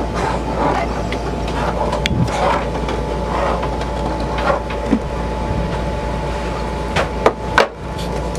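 Steady low machine hum with faint voices behind it. Near the end come three sharp knocks as a hard plastic AC vent fitting is handled on the fiberglass surface.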